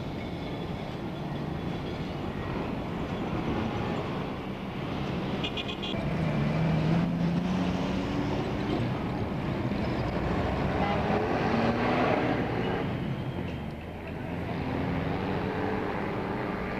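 Street traffic noise with vehicle horns tooting now and then through the middle, over a steady low rumble.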